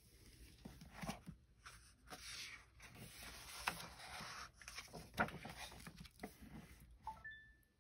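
Pages of a hardcover picture book turned by hand: faint paper rustling and sliding as the cover and endpaper are flipped over, with a couple of light taps partway through.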